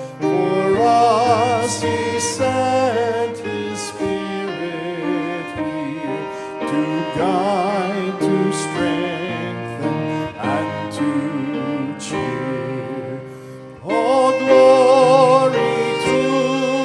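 Church music: a melody with strong vibrato, sung or played on bowed strings, over sustained lower notes. It drops away briefly and comes back louder near the end.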